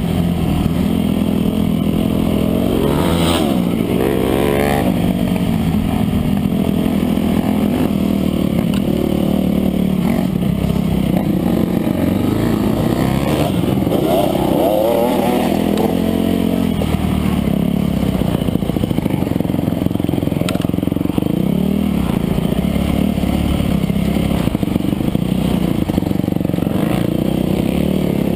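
Dirt bike engine running continuously and revving up and down as the bike is ridden over a rough dirt trail, with sharper climbs in pitch a few seconds in and again about halfway through.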